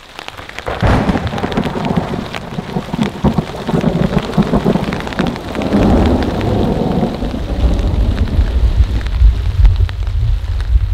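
A long roll of thunder begins about a second in and rumbles on, swelling in the second half, over rain pattering on the tarp overhead.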